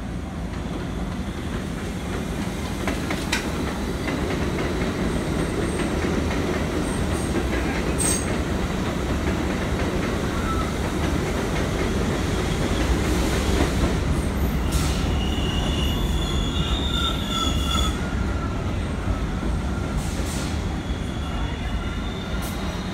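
An R62A subway train rumbling slowly into an elevated station along the platform, its wheels running over the steel structure. The rumble grows louder towards the middle, with a few sharp rail clicks early on. A high wheel squeal comes in a little past the middle.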